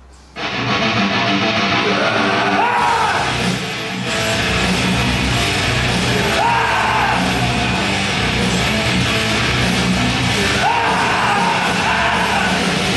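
Loud heavy rock music with a shouted vocal, cutting in abruptly about half a second in.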